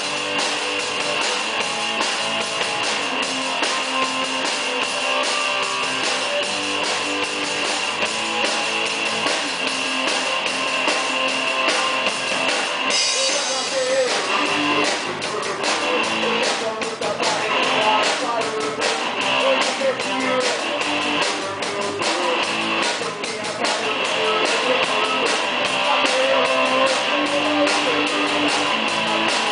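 Amateur rock band playing live: drum kit with steady cymbals, electric guitars and a singer on a microphone. A cymbal crash about halfway through, after which the song's texture changes.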